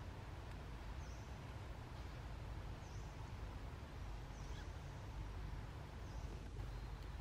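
Quiet outdoor background: a steady low rumble, with a faint high chirp from a small creature repeating evenly four times, about every second and a half to two seconds.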